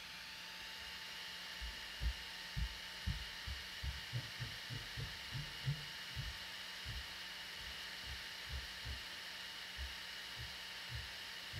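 Cooling fan on the Xilinx ZCU102 board's heatsink running steadily, a whirring hiss with a faint whine, over a run of low dull thumps, most of them between about two and six seconds in.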